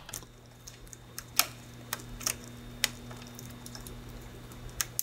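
Scattered light plastic clicks and taps, about seven in all and irregularly spaced, as wiring connectors are handled and fitted onto a bracket, over a steady low hum.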